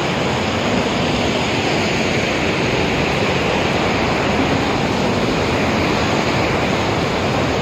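Waterfall rushing over rocks: a loud, steady wash of water noise.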